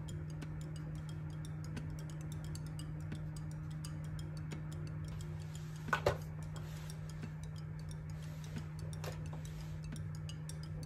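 Soft background music with fast, light ticking percussion over a steady low drone. A sharp double click about six seconds in.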